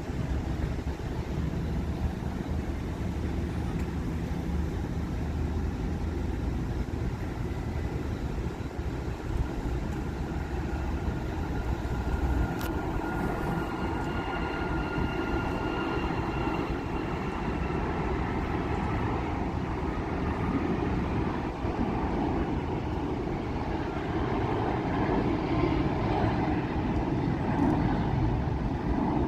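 Jet airliner engines running, a steady rumble with a faint whine that comes in partway through and fades a few seconds later.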